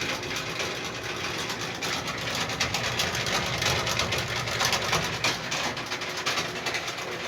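Whirlpool Duet Sport front-load washer making its grinding noise: a steady, fast rattling grind. The repairer puts it down to a bad, worn drain pump whose shaft moves around.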